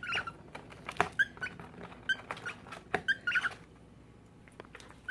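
Cockatiels giving short chirps about once a second, with sharp clicks and scratches of claws and beaks on a brown paper bag. The sounds die down a few seconds in.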